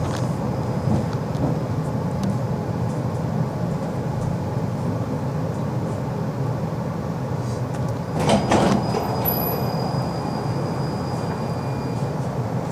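Tram running, heard from inside the car: a steady low rumble, with a brief louder rush of noise about eight seconds in.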